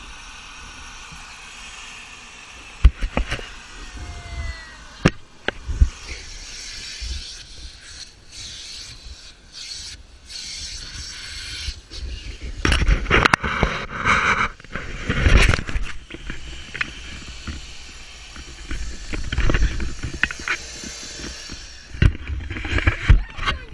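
Handling noise from a camera in a waterproof case: scattered knocks and thumps with rubbing and scraping as it is carried and moved around.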